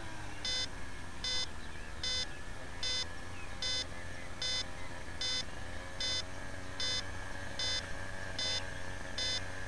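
Electronic beeper aboard a crashed RC model airplane beeping steadily, a short high beep a little more than once a second, over a faint steady hum.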